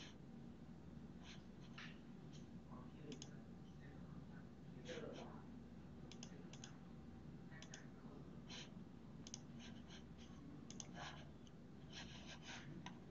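Faint, scattered clicks of a computer mouse and keyboard, several in a quick cluster near the end, over a low steady hum.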